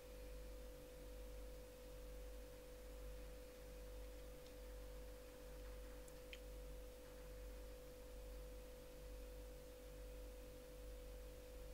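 Near silence with a faint, steady hum carrying a single held tone, and one faint tick about six seconds in.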